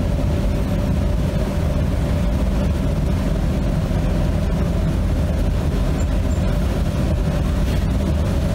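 Steady low rumbling noise with a faint steady hum above it, unchanging throughout.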